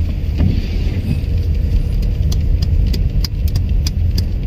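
Car engine and tyre rumble heard from inside the cabin while driving on a snow-covered road, steady and low. From about two seconds in, a scattering of short sharp ticks comes through on top.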